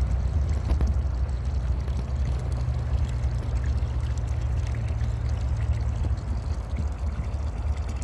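Wind buffeting the microphone: a steady, unsteady-level low rumble.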